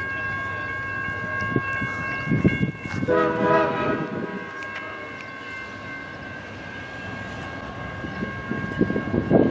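Train moving by with a steady high-pitched metallic squeal and a rumble underneath, and a short horn-like blast about three seconds in.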